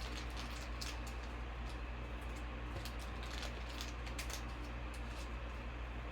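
Baseball trading cards being handled and flipped through, with light scattered clicks and rustles over a steady low hum.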